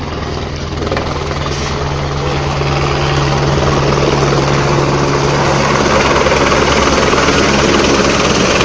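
Single-engine light helicopter coming in to land, hovering low over the helipad. Its rotor and engine noise grows steadily louder over a steady low hum.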